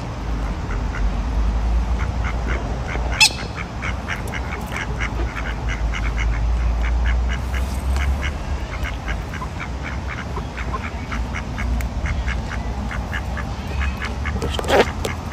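Mallard ducks quacking in a rapid run of short, soft calls, over a steady low rumble. Two sharp clicks stand out, about three seconds in and near the end.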